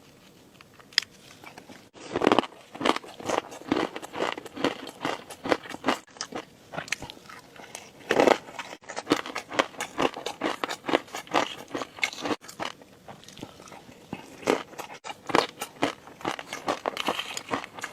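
Close-miked eating of crunchy food: fast, crisp crunching and chewing that starts about two seconds in, with a few louder bites.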